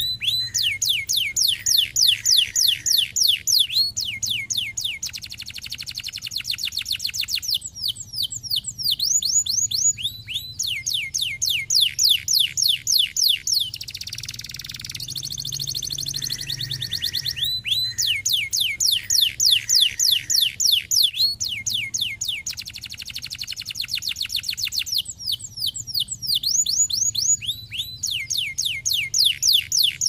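Domestic canary singing: long rolling trills of fast, falling whistled notes, about five a second, in four phrases of several seconds with short pauses between them.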